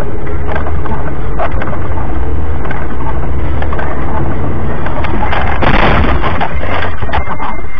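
Overloaded dash-cam recording of a car's cabin noise while driving on a wet road in rain: a constant, distorted rumble packed with crackles and clicks, with a louder burst of hiss about six seconds in.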